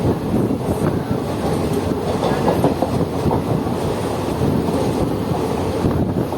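Passenger express train running, its wheels rumbling and clattering steadily over the rails.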